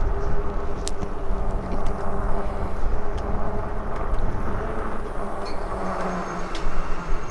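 Riding noise from a Lectric e-bike moving along a trail: a steady low rumble with a faint hum and a few light clicks.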